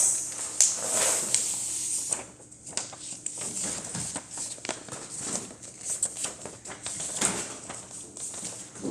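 A sheet of paper being folded in half and creased, with irregular rustles and crackles of the paper being handled.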